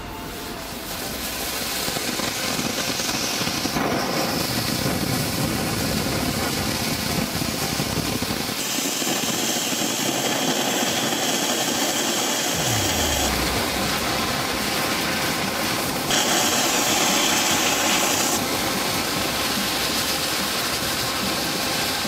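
Several Silver Fountain cone fireworks burning, spraying sparks with a loud, steady hiss that builds over the first two seconds. A harsher, higher hiss joins in twice, for about five seconds midway and again for about two seconds later.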